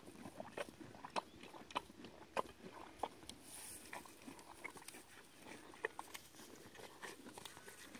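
Miniature Shetland pony chewing dry hay: irregular crisp crunches, a few each second, as it bites off and grinds the stalks.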